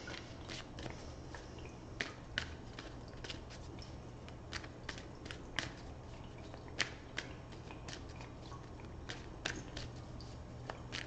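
A deck of tarot cards being shuffled by hand, with cards dropping from hand to hand in irregular soft clicks and slaps. A faint steady low hum lies underneath.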